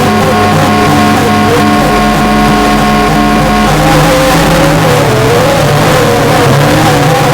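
Loud background music with sustained notes whose pitch shifts in steps every second or two.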